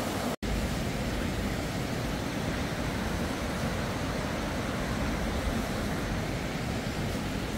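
Rapids on the River Dee rushing over rocks, a steady even noise of white water, which cuts out for an instant near the start.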